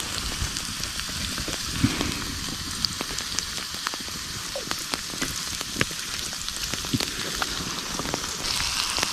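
Potatoes frying in oil in a pancake pan over a campfire: a steady sizzle with scattered pops and crackles, which gets brighter near the end.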